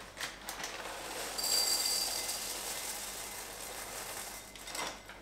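Small chocolate cereal balls poured from the bag into a bowl, a continuous rattling patter of dry cereal landing. It is heaviest about a second and a half in and tails off shortly before the end.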